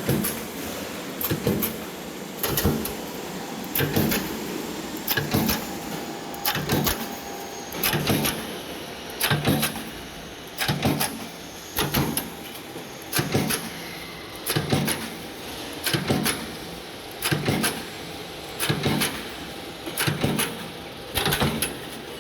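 Machine for making open-cell grid ceiling strips running through its cycle, a cluster of clacking strokes repeating evenly about every 1.3 seconds over a steady running noise.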